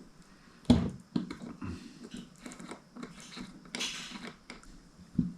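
Metal bike-pedal parts and a socket handled on a workbench: a few sharp clicks and knocks, the loudest under a second in, and a brief scrape a little before four seconds in.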